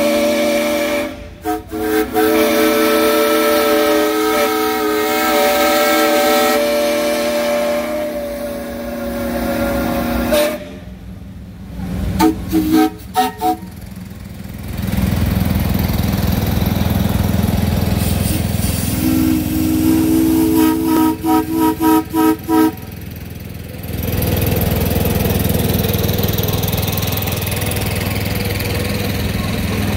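A steam whistle sounds a long multi-tone blast for about ten seconds, then several short toots, then a second blast broken into a string of quick toots about twenty seconds in. Heavy engines run underneath, heard alone once the whistle stops near the end.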